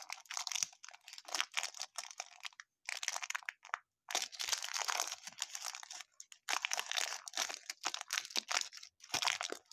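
Crinkling and tearing of a tightly sealed baseball card pack wrapper being worked open by hand. It comes in irregular crackly bursts with brief pauses.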